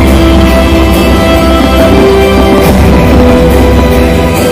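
Loud music with sustained held notes over a strong, steady bass.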